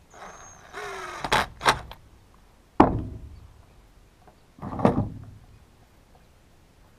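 Tools and small chainsaw parts handled on a workbench during reassembly: a scraping rattle about a second in, then two sharp knocks, each ringing out briefly.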